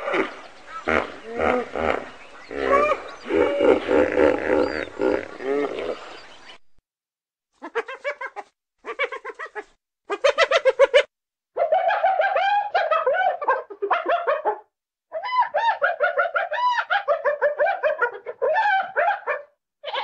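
Hippopotamus grunting and honking in a rhythmic series for about six seconds. After a short silence, a hyena calls in repeated bursts of quick pitched notes that rise and fall.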